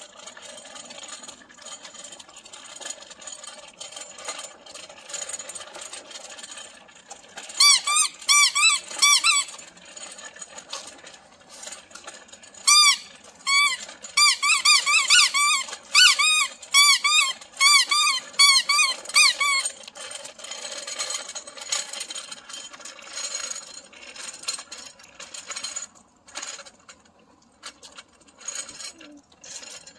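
Child's bicycle squeaking in a rhythmic series, about three squeaks a second, as it is pushed along. One bout comes about eight seconds in and a longer one from about thirteen to twenty seconds in.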